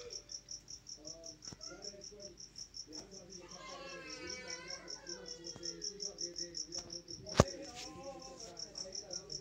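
Cricket chirping: quiet, evenly spaced high chirps repeating steadily. A single sharp click sounds about seven seconds in.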